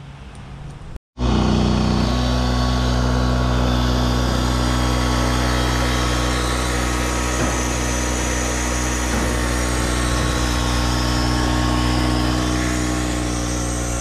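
Engine-driven pump running steadily with a deep, even hum while it sucks heating oil out of a residential oil tank through a hose. It cuts in abruptly about a second in.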